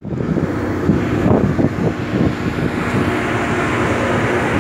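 Fishing vessel's engine running steadily, heard from the open deck over wind and sea noise, with a few knocks about one to two seconds in.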